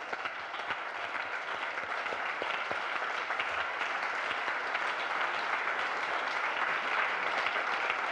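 Room full of people applauding, many hands clapping together; the applause swells gradually and holds.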